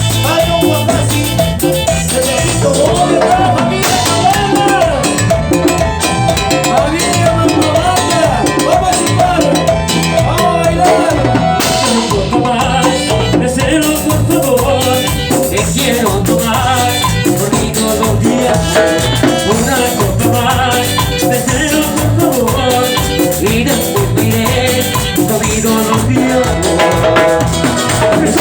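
A Latin dance band, in the Ecuadorian chichera style, playing an upbeat instrumental passage: a steady drum beat under a melodic lead.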